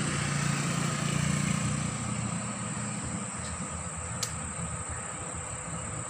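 A low engine hum, louder in the first two seconds and then fading, over a steady high-pitched insect drone, with one sharp click about four seconds in.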